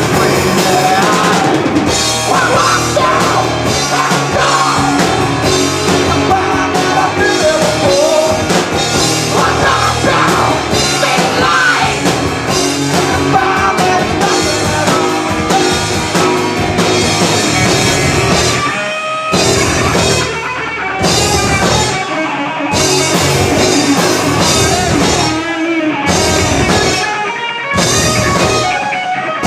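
Live rock band playing loud, with a singer, drum kit and electric guitar. In the second half the band plays stop-start hits with short breaks between them.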